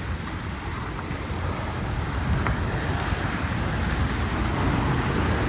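Water rushing along a water-park slide and wind buffeting the microphone as an open raft slides down it, a steady rushing noise with a low rumble that grows gradually louder.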